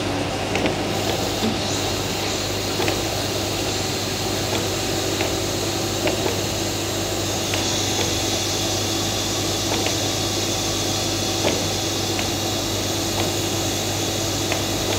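Reverse osmosis plant running: a steady pump and motor hum with rushing water hiss, and light clicks every second or so. About halfway through the hiss grows brighter as the reject valve is gradually closed and the pressure rises.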